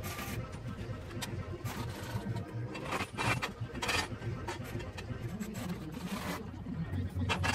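Metal knocks and scrapes from working a homemade bottle-jack press brake loaded with a sheet of steel, a few sharp knocks spread through, busiest in the middle and near the end.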